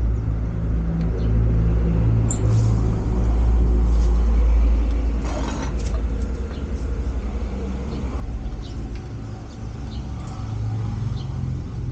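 A motor vehicle engine running nearby: a steady low rumble that slowly fades, with a few light clicks over it.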